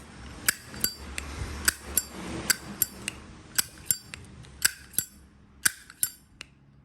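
Zippo lighter being handled, its metal lid snapped open and shut: a string of sharp metallic clicks, each with a brief ring, about two a second, thinning out near the end.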